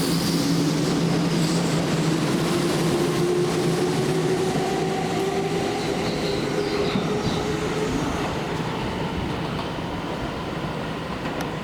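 Electric train running on the line, with a motor whine that climbs steadily in pitch as it gathers speed, over the rolling noise of wheels on rail. The sound eases off a little near the end.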